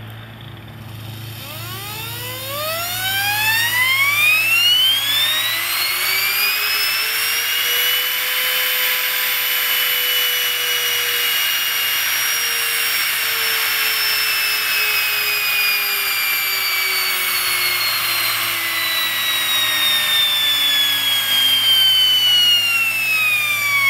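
48 V DC universal motor speeding up and slowing down on a variac, with a strip of paper on its shaft added to make a higher-pitched buzz. The whine rises steeply in pitch over the first several seconds, holds near its top, then sinks slowly and falls faster near the end as the motor winds down; it is very loud, over 100 dB.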